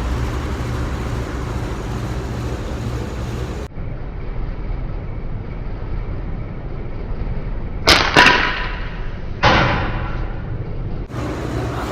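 Pellet gun firing at an aluminum soda can: a sharp report with a short ringing tail about eight seconds in, closely followed by a click, then a second sharp sound with a fading tail about a second and a half later. The shot knocks the can over.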